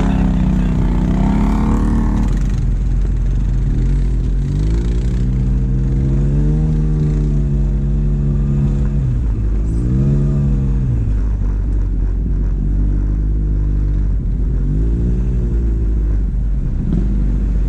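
ATV engine revving up and easing off several times as the quad rides the trail: a long climb in pitch that holds for a few seconds before dropping, then shorter revs, over a steady low rumble.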